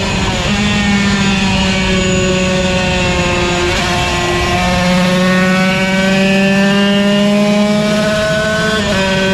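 Yamaha TZ125 125cc two-stroke single race bike running hard. The engine pitch drops sharply at the start, sags slowly for a few seconds, breaks off briefly about four seconds in, then rises steadily under acceleration before a quick dip near the end.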